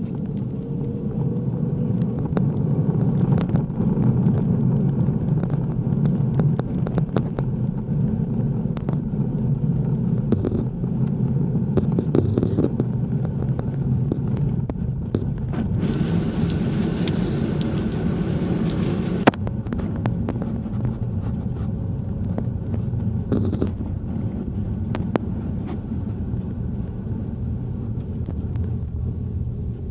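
Steady low rumble inside a jet airliner's cabin as it rolls along the runway, from the engines and the wheels on the pavement. A hiss starts a little past halfway and cuts off suddenly about three seconds later.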